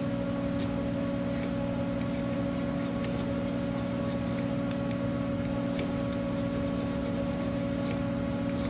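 Small hand file used as a scraper on the steel clutch part, taking off burrs in short, light scraping strokes that come more often after about three seconds. A steady hum of something running underlies it throughout.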